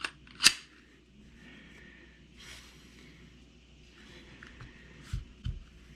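A Glock 30 .45 pistol being handled after it has been emptied: one sharp metallic click about half a second in, then faint handling noise and two soft thumps near the end.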